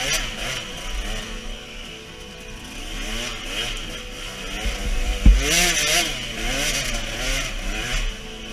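Off-road motorcycle engine running on a rough dirt track, its pitch rising and falling as the throttle is opened and closed. Bursts of rushing noise come in about halfway, with a sharp thump about five seconds in.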